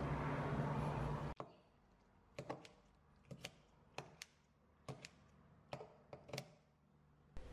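Kitchen scissors snipping through kimchi in a glass bowl: about a dozen short, sharp snips, some in quick pairs. Before them a steady low hum cuts off abruptly about a second in.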